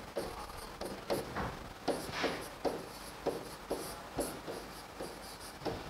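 Chalk scratching on a blackboard while a line of words is handwritten: a dozen or so short strokes, about two a second.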